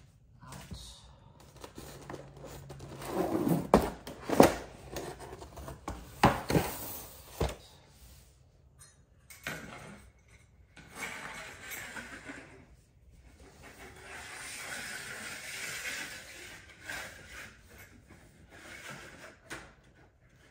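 Plastic model train track sections knocking and clicking as they are handled and pushed together; the joints are stiff and need a firm push to snap. Several sharp knocks come in the first half, followed by a few seconds of rubbing and scraping.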